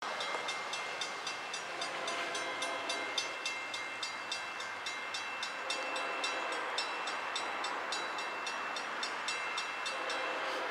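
Railroad grade-crossing bell ringing steadily, about four strikes a second, each with a high ringing tone: the crossing warning of an approaching freight train.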